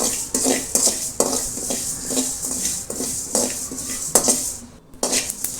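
A spoon stirring fennel seeds dry-roasting in a metal pan, scraping and clinking against it in repeated short strokes over a light crackling hiss of the seeds. There is a brief pause near the end.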